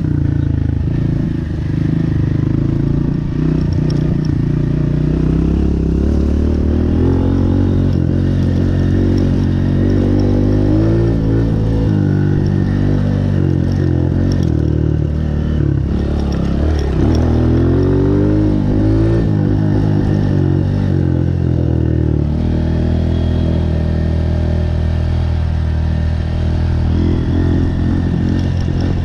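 Honda CRF125F big wheel's single-cylinder four-stroke engine running while riding, its pitch rising and falling repeatedly as the throttle is opened and closed, most between about eight and twenty seconds in, then steadier.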